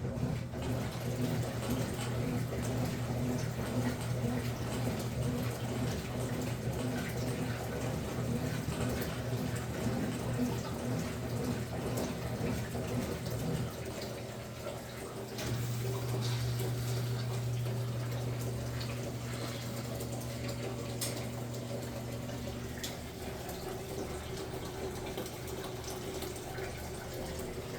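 Consul Facilite 11 kg washing machine running on a rug load, water moving in the tub over a steady low hum that dips briefly about halfway through and then comes back a little higher.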